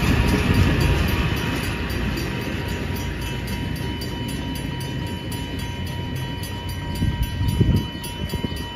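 Kawasaki M8 electric multiple-unit train rolling past and pulling away: a low rumble of wheels and running gear, loudest as the last car passes and fading as the train recedes.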